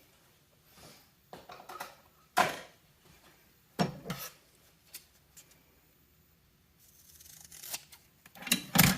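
A strip of DEI heat-reflective cool tape being trimmed to length: several short, separate cutting and handling sounds, the loudest near the end.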